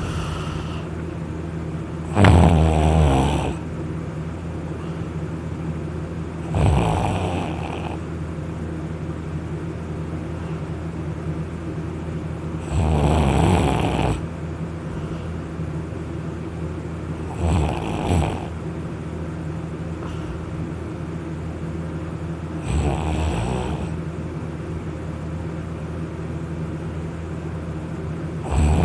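A person snoring loudly after drinking alcohol, lying on their back: six rasping snores, one every four to six seconds, each lasting about a second.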